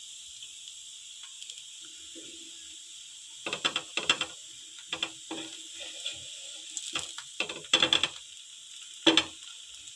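Wooden spatula scraping and knocking on a nonstick tawa as slices of semolina-topped bread toast are flipped, a series of short scrapes starting about three seconds in, over a steady sizzle of the toast frying in ghee.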